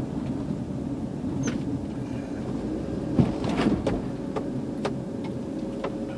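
Car cabin noise while driving slowly: a steady low rumble of engine and tyres with a faint steady hum, and scattered light clicks and rattles, a few louder ones around the middle.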